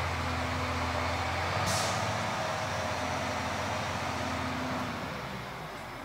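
A heavy vehicle's engine running with a steady low hum, with one short air-brake-like hiss a little under two seconds in; the engine sound fades away about five seconds in.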